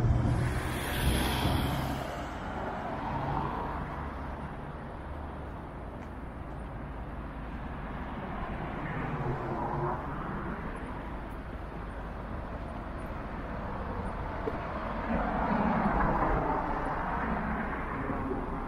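Outdoor traffic ambience: a steady low rumble, with passing vehicles swelling and fading at the start, about nine seconds in, and again from about fifteen to seventeen seconds in.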